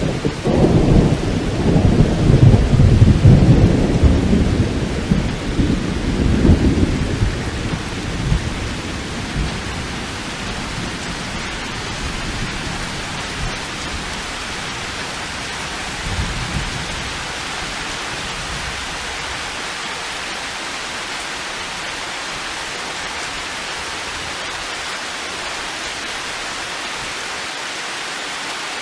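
Steady heavy rain with a long roll of thunder rumbling deep and loud at the start, dying away over about eight seconds; a smaller rumble comes in about halfway, then only the steady rain hiss remains.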